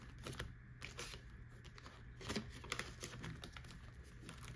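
Soft rustling and handling of a cash-stuffing binder: plastic envelope pages and paper bills being flipped, with a few light clicks and taps.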